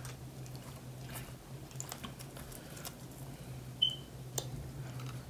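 Faint clicks and taps of a spoon working in a ceramic bowl of condensed milk, with one short clink just under four seconds in and a sharper tick just after, over a low steady hum.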